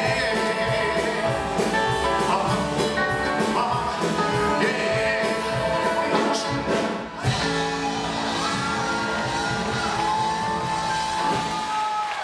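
Male singer and live rock and roll band (drums, electric bass, guitars) playing loudly, with a steady beat. The beat breaks off about seven seconds in and the singer and band hold long notes through the last few seconds.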